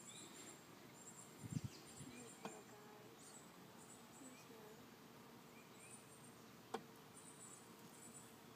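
Faint buzzing of honeybees flying around an open nuc hive, a steady low hum. A few knocks come about a second and a half in, and a sharp click near the end.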